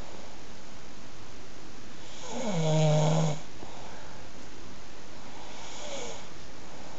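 A person snoring. One snore comes about two and a half seconds in, sliding down in pitch and then holding a low steady tone for about a second, and a fainter one comes near the end, over a steady hiss.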